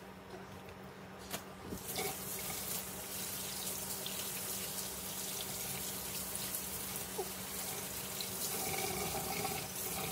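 Kitchen tap turned on about two seconds in, then water running steadily into a stainless steel sink and splashing over a live crab being rinsed by hand.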